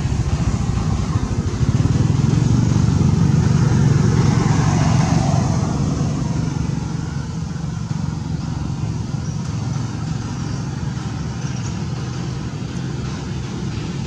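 Engine of a passing motor vehicle with a steady low hum. It grows louder from about two seconds in and eases off after about six seconds.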